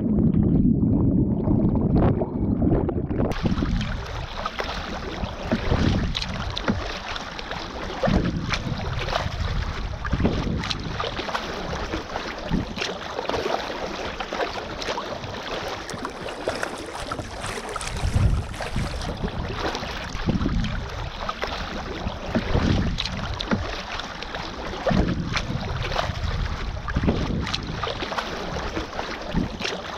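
A kayak being paddled on the sea: water splashing and washing along the hull, swelling with each paddle stroke about every two and a half seconds. The first few seconds are muffled, heard from below the waterline, before the sound opens up above the water.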